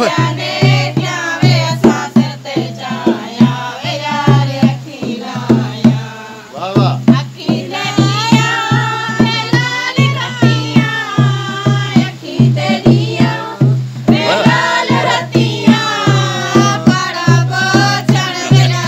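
Women singing a folk song together to a dholki, a two-headed barrel hand drum, played in a steady, driving beat.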